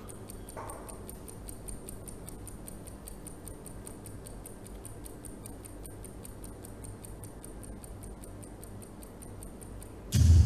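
Clock-ticking sound effect of a quiz countdown timer: rapid, even ticks.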